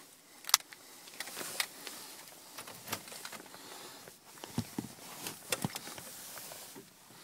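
Scattered sharp clicks and rustling from handling inside a car, with the engine not running.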